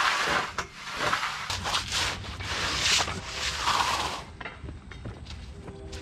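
A long-handled metal float scraping over wet concrete in rough swishing strokes, which grow quieter from about four seconds in.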